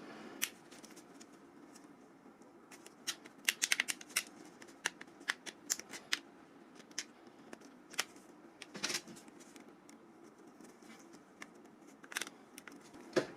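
Plastic clips of a Nokia 5530 XpressMusic's chrome frame clicking and snapping as the frame is pried off the phone's body, with irregular sharp clicks and light scraping.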